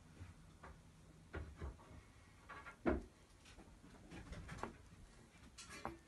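A few irregular soft knocks and clicks, the loudest one about three seconds in.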